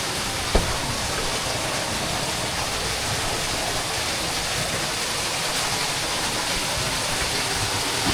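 Steady rush of flowing cave water, an even hiss with no pitch, with one sharp click about half a second in.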